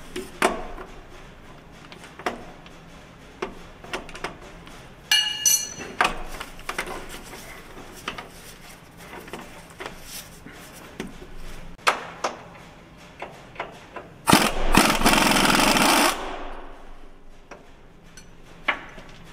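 Pneumatic air wrench running bolts into a truck frame bracket. There is a short whine of the air motor about five seconds in, and one loud rattling run of under two seconds near the end, with scattered clinks of socket and metal in between.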